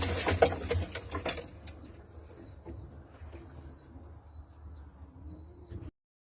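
Domestic pigeons cooing, with a busier, louder stretch of scratchy rustling for about the first second and a half. After that it is quieter, with four short, faint high chirps, and the sound cuts off suddenly near the end.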